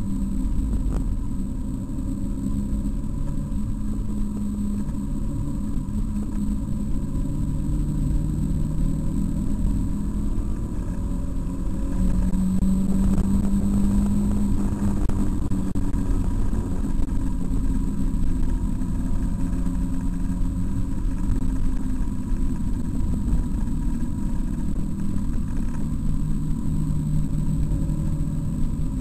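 Mazda MX-5's four-cylinder engine heard from inside the cabin, driven hard around a track. Its pitch rises and falls as it accelerates and changes gear, over a low rumble of road noise.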